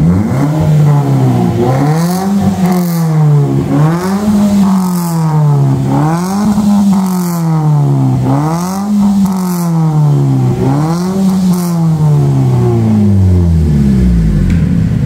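Toyota Calya's 1.2-litre four-cylinder engine being revved through a freshly fitted aftermarket JS Racing muffler and straight pipe. The throttle is blipped about every two seconds, the exhaust note rising and falling each time, then it drops back toward idle near the end.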